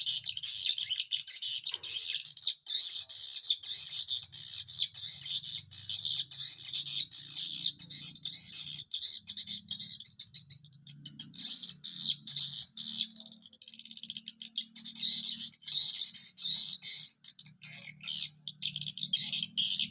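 Edible-nest swiftlets twittering: a dense, unbroken stream of quick high chirps that thins for a moment about two-thirds of the way through.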